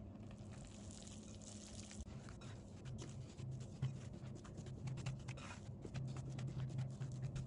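Hands kneading soft, sticky yeast dough in a glass bowl: faint, irregular wet squishing and small clicks, after a plastic whisk briefly stirs flour into the liquid at the start.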